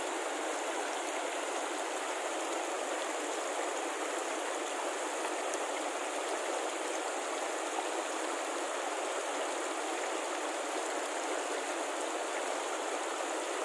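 Shallow rocky mountain stream rushing over boulders in small rapids, a steady, even rush of water.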